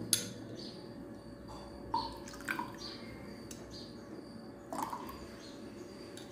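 Tulsi (holy basil) juice being spooned into a drinking glass: a light click near the start, then a few separate quiet drips and trickles of liquid landing in the glass.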